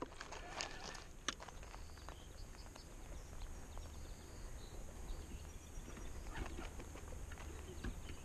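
Faint steady low rumble with a few light clicks and taps from handling a spinning rod and reel, the clearest about a second in.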